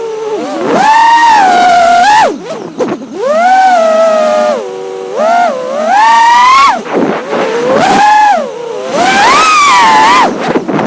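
5-inch FPV freestyle quadcopter's motors and propellers whining. The pitch swoops up and falls back again and again, with about five loud surges as the throttle is punched and chopped.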